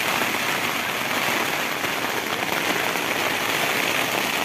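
Heavy rain falling steadily on a camping tent, an even hiss with no letup.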